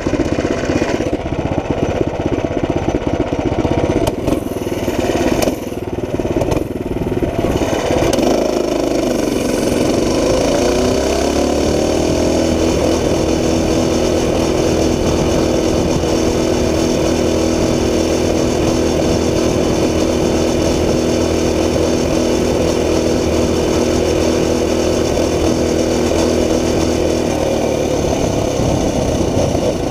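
Tillotson 212 Hemi single-cylinder engine on a Coleman CT200u-EX minibike at full throttle. It runs rough and uneven for the first several seconds, climbs in pitch about ten seconds in, then holds one steady note at its governed top speed of about 29 mph before easing off near the end.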